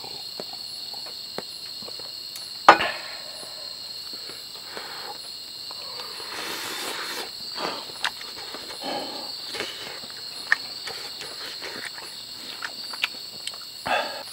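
Crickets chirring steadily in a high, even trill. A sharp knock cuts in about three seconds in and another near the end, with a few fainter clicks between.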